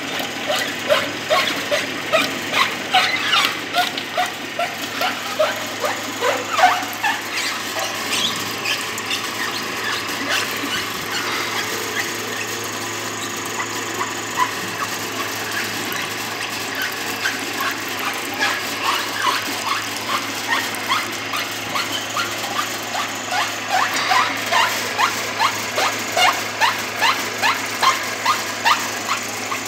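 Small stainless-steel screw oil expeller pressing copra: a steady motor hum with a rhythmic squeak about two to three times a second from the press. The squeaks are fainter in the middle stretch and stronger again near the end.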